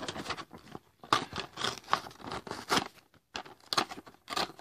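Plastic and cardboard toy packaging being handled and pulled open: irregular crinkling, rustling and scraping in short bursts with brief pauses.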